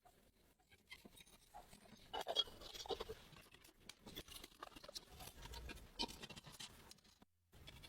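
Faint, irregular scratching, tapping and clicking from hand work on chainsaw parts, cut off briefly by a moment of silence near the end.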